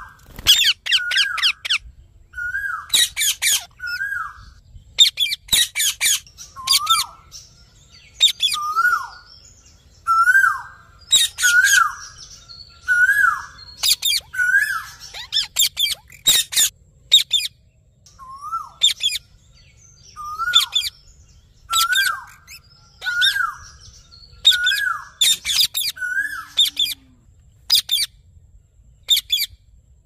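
Indian ringneck parakeets calling: short hooked chirps that rise and drop back, mixed with loud, shrill screeches, one after another about every second or two.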